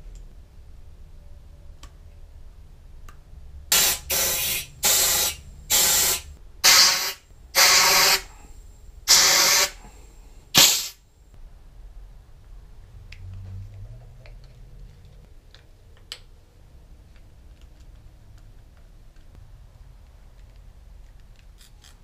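Compressed-air blow gun fired in about seven short hissing blasts roughly a second apart, starting about four seconds in: air blown under a rubber handlebar grip to slide it onto the bar.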